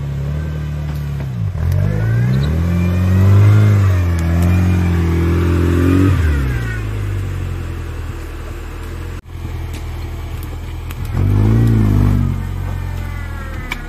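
Off-road competition vehicle's engine running and revving hard, its pitch climbing and dropping repeatedly, with a second burst of revving near the end.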